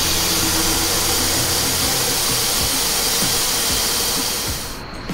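Compressed air hissing steadily out of the valve stem of a dual rear truck tire as air is let out to lower its pressure. The tire is running hot. The hiss cuts off sharply near the end.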